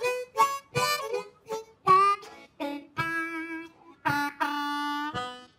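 Blues harmonica played solo and cupped in both hands: a run of short choppy notes, some bent in pitch, then two long held notes, stopping shortly before the end.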